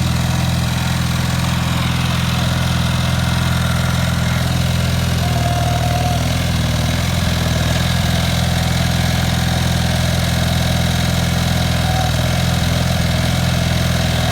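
Tractor engine idling steadily, a loud, even, low-pitched running note.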